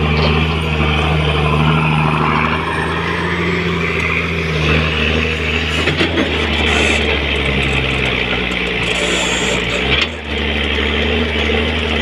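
Komatsu PC200 hydraulic excavator's diesel engine running steadily under load while it works soil, its note shifting slightly as the hydraulics are worked and dipping briefly about ten seconds in.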